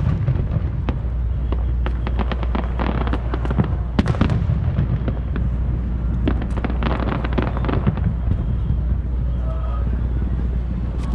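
Aerial fireworks bursting and crackling: many sharp pops and bangs in quick clusters, thickest from about two to four seconds in and again around seven seconds in, over a steady low rumble.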